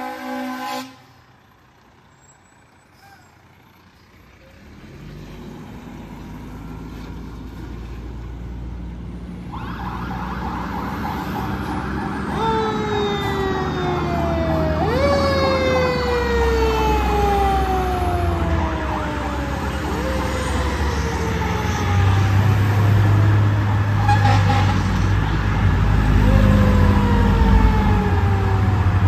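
The end of a fire apparatus air horn blast, then the Detroit Diesel Series 60 engine of a 2007 American LaFrance Eagle fire engine pulling away. Over it the siren sounds steadily, with a mechanical siren wound up again and again, each time falling slowly in pitch as it coasts down.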